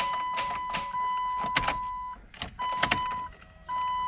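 The Dodge truck's dashboard warning tone sounds steadily with repeated clicking as the key is worked. The tone cuts out twice when the key is turned to start, and the engine does not crank. The owner puts the no-crank down to something not connected rather than just a dead battery.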